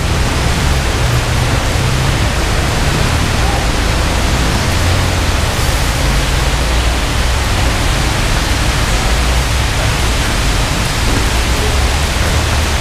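A loud, even rushing hiss with a low rumble underneath that stays steady throughout, covering the court sounds; no single ball bounce or shoe squeak stands out.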